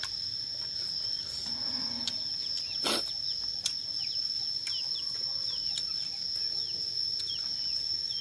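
Steady high-pitched insect drone, with many short falling chirps over it and one sharp click about three seconds in.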